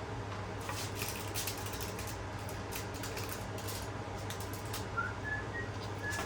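Light, scattered clicks and taps of kitchen handling, utensils and food being worked, over a steady low hum. A few short, high chirps come in near the end.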